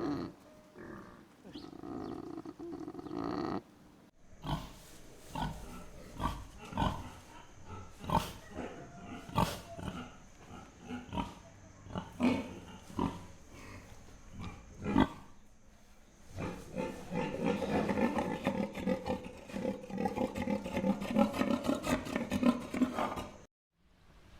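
Pigs grunting across three separate recordings that change about 4 and 16 seconds in: first a short stretch of grunting, then single short grunts spaced apart, then a dense, continuous run of grunts.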